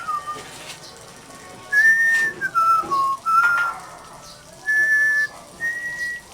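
A person whistling a slow tune: a few held notes that slide from one pitch to the next, in short phrases with breaks between them.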